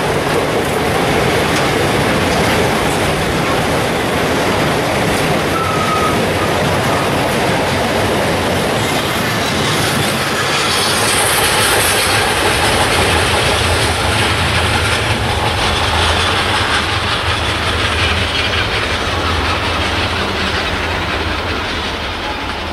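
Freight wagons loaded with steel coils rolling past, the wheels giving a steady rumble and clatter, with a brief wheel squeal about six seconds in. The sound fades near the end as the tail of the train draws away.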